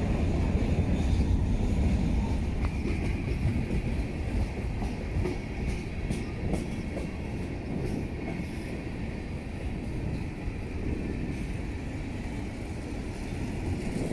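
Freight train cars rolling past on steel wheels: a steady low rumble with occasional clacks over the rail joints.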